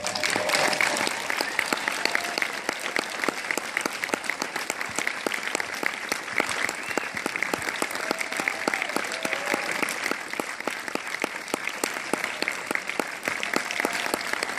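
Large theatre audience applauding: a dense, steady patter of many hands clapping that starts at once, with a few voices calling out over it.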